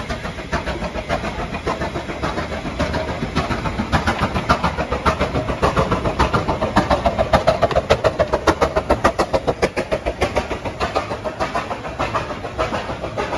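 Steam engine working hard, its exhaust beating in fast, even chuffs about five a second, loudest around the middle.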